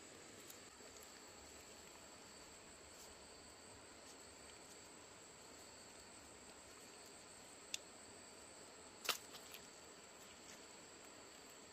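Faint, steady high-pitched insect trilling in two tones, with a few sharp clicks from split-bamboo strips being handled and bent; the loudest click comes about nine seconds in.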